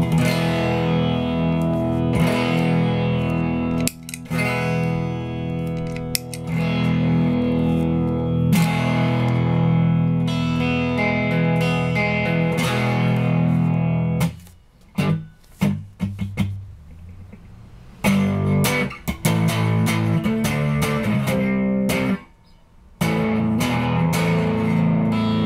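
Electric guitar played through Fairfield Circuitry effects pedals, ringing sustained chords with an effected tone; the sound drops away for a few seconds about fourteen seconds in and again briefly near the end.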